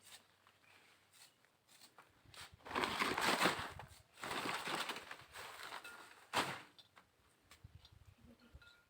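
Rustling and scraping of banana flower being cut and handled: two longer rough bursts around three and four and a half seconds in, a short sharp one near six and a half seconds, and small scattered clicks.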